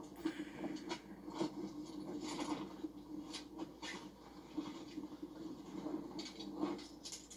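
Irregular rustling, rubbing and scraping of camping gear being handled and set up, a few strokes a second, over a steady low hum.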